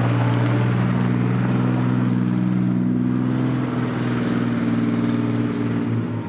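Small tow tractor's Nissan diesel engine running steadily at a constant speed, with a slight drop in level near the end.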